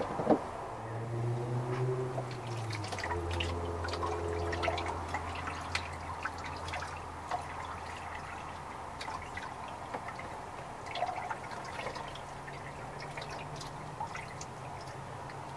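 Water sprinkling and dripping from holes poked in the cap of a plastic gallon jug onto a wet dog in a plastic tub, heard as many small drips and splashes.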